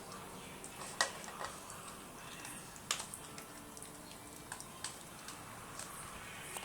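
Scattered light clicks and ticks at an irregular pace, the two sharpest about a second in and just before three seconds.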